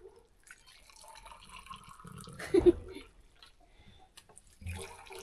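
Liquid splashing and trickling, with one brief louder sound about halfway through.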